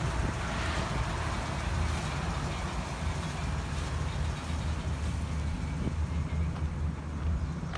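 Ford 5.4-litre V8 gas engine of a box truck idling steadily with a low hum.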